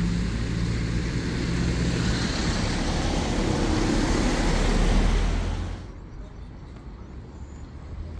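Road vehicle noise: a car's engine hum and tyre noise on a wet road, swelling slightly and then cutting off abruptly about six seconds in. A much quieter outdoor background follows.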